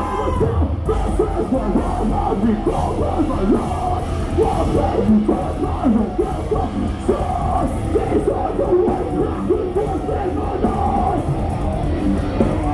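Live metalcore band playing loud, with yelled vocals over distorted guitars and drums, heard from within the crowd.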